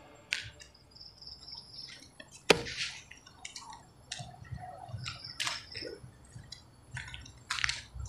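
Footsteps and shoe scuffs on pavement while walking, with scattered small clicks; a sharp click about two and a half seconds in is the loudest sound.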